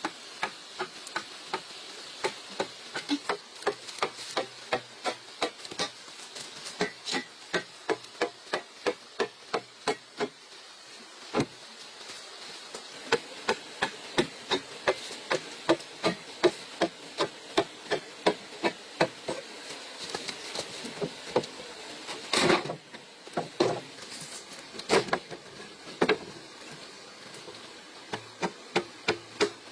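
Repeated blows of a hand tool on bamboo, two to three strikes a second in a steady rhythm, pausing briefly about a third of the way in, with a few heavier strikes a little past the middle. A faint steady insect buzz runs underneath.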